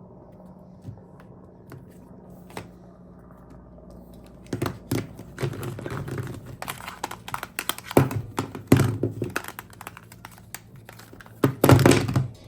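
Handling noise: irregular taps, clicks and knocks begin about four and a half seconds in and grow denser, with the loudest knocks near the end, over a faint steady hum.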